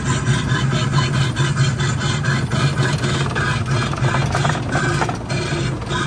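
Casey Jr. Circus Train ride cars rolling along the track: a steady low rumble with quick, repeated clicking and rattling from the wheels and cars.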